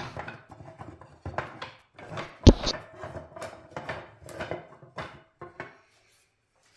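Hardwood strips knocking and clattering against each other and the bench as they are handled and laid out for gluing, with one sharp knock about two and a half seconds in. The knocks stop shortly before the end.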